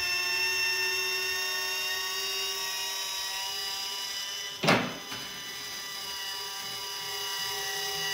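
Electric linear actuator motor whining steadily as it drives the quick-attach lock levers open, with a single sharp clunk about halfway through.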